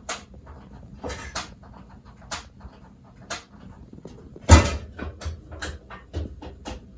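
Irregular sharp clicks and knocks of kitchen work, about one a second, with one heavier thump about four and a half seconds in.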